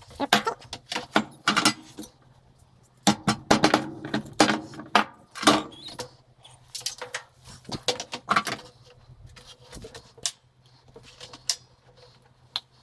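Pieces of scrap metal clinking and clattering as they are handled and dropped, in irregular bursts of quick metallic knocks, with a few single clinks near the end.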